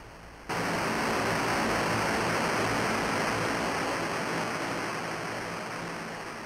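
Sudden wash of white-noise hiss that cuts in about half a second in and slowly fades away.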